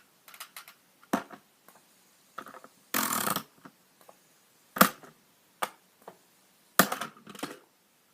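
A fidget spinner being forced and struck in an attempt to break it: a series of sharp knocks and cracks, about six in all, with a longer grinding crunch about three seconds in and the loudest hit just before five seconds.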